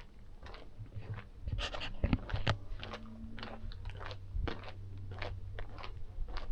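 Footsteps crunching on a path, about two steps a second, walking at an easy pace.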